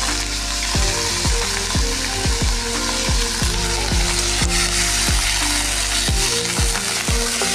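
Pork sizzling as it fries in a pan, over background music with a deep, steady beat of about two kicks a second.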